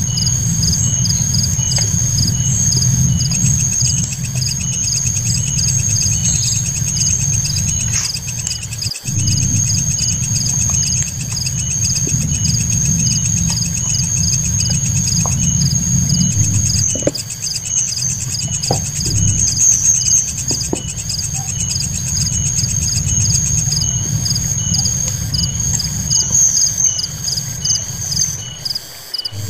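Tropical forest insects trilling in a steady, high-pitched, rapidly pulsing chorus over a low rumble, with a few light clicks in the second half.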